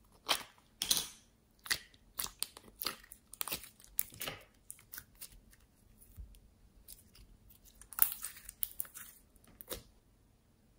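Sticky slime being handled: the lid is peeled off a plastic slime container, then the slime is pulled out and stretched between the fingers. This makes a run of sharp crackles, snaps and sticky pops, loudest about a second in and again towards the end.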